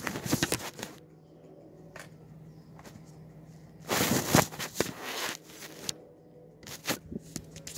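Handling noise: bursts of rustling and clicking as things are moved about, once right at the start, a longer stretch in the middle and a short one near the end, over a faint steady hum.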